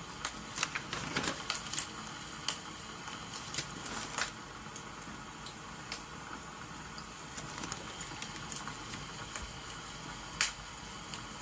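Wood fire crackling: irregular sharp pops and clicks over a steady hiss, with a quick cluster of pops in the first two seconds and one loud pop near the end.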